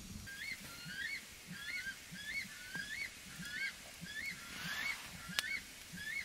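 Weka calling: a steady run of shrill, rising whistled calls, about two a second.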